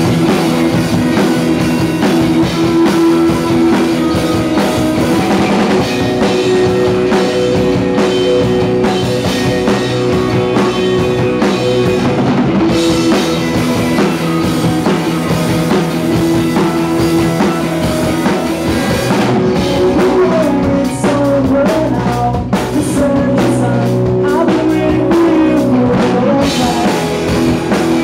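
Live rock band playing loud electric guitars over a drum kit. In the last third, a higher line that bends in pitch weaves over the top.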